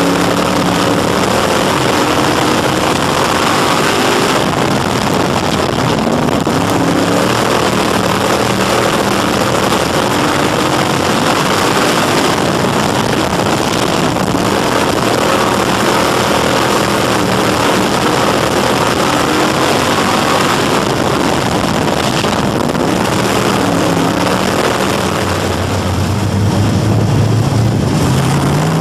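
A Crate Sportsman dirt modified's crate V8 racing engine, heard from inside the cockpit at racing speed. It runs loud and continuous, its pitch falling as the driver lets off into each turn and climbing again on the throttle down the straights, over heavy wind and track noise.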